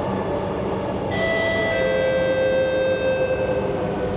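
Two-note descending chime from the onboard passenger announcement system of an SMRT C751B train: a higher note about a second in, a lower note about half a second later, both ringing on. It heralds an onboard announcement and sounds over the steady running rumble of the train inside the carriage.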